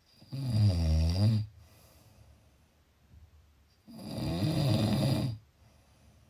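A sleeper snoring: two long snores about three seconds apart, each lasting over a second and rising and falling in pitch.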